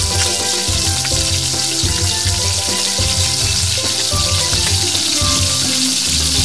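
Batter-coated ixora and bougainvillea flowers frying in hot oil in a small pot, a steady sizzle as chopsticks turn them. Background music with a low pulsing beat plays over it.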